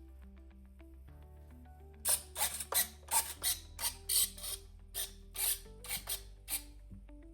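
Small RC servos whirring in a quick run of short, irregularly spaced bursts, the control surfaces being moved to and fro, over steady background music.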